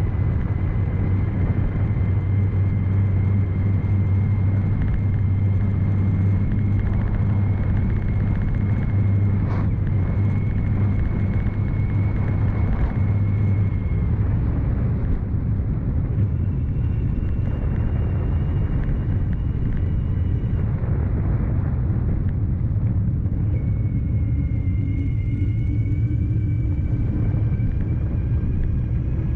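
CYC X1 Stealth Gen3 mid-drive e-bike motor whining while riding, over a steady low rumble. The whine changes pitch a few times, stepping up a little past the middle and rising again near the end.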